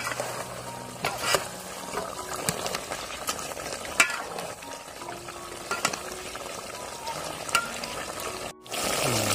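Food sizzling in a hot pan while it is stirred, with the spoon knocking and scraping against the pan several times. The sound cuts off abruptly near the end.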